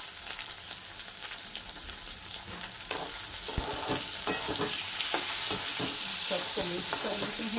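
Diced raw potatoes sizzling in hot oil in a kadhai. From about three seconds in, a steel ladle stirs them, scraping and knocking against the pan.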